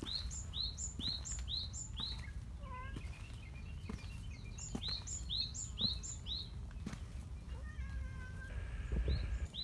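A small songbird repeating a quick high note, about three a second, in a run of five or six, then again about five seconds in. Softer, wavering calls and scattered soft footfalls lie underneath.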